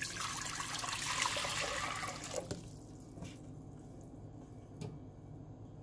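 Water poured from a glass jug into an empty stainless steel pot, a splashing rush that lasts about two and a half seconds and then dies away. A few light knocks follow.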